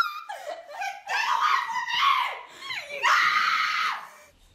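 A person screaming and laughing in high-pitched shrieks, the longest scream about three seconds in, then it stops shortly before the end.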